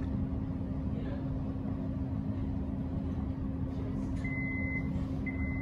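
Steady low rumble and hum inside an X'Trapolis electric train carriage. From about four seconds in, a high electronic beep repeats about once a second, typical of the door-closing warning.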